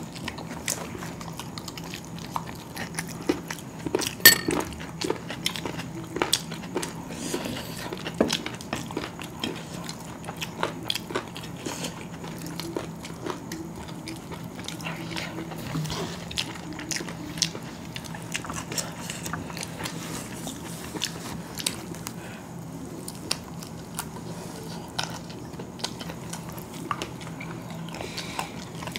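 Close-up eating sounds of chicken biryani eaten by hand: chewing and mouth noises with many short sharp clicks, the loudest about four seconds in, over a faint steady low hum.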